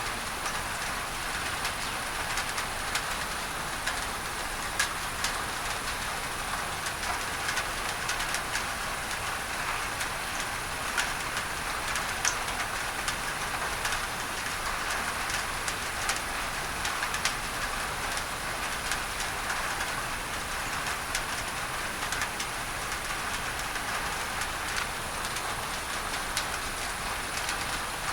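Rain pattering on a tin roof, a dense steady patter with many sharp drop clicks, mixed with a steady hiss of masking noise.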